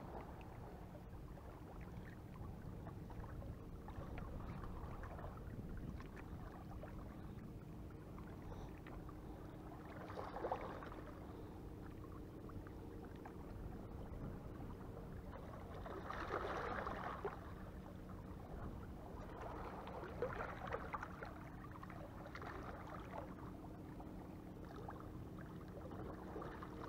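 Faint sea water lapping against breakwater rocks, with a few soft swells of splashing, over a steady low hum.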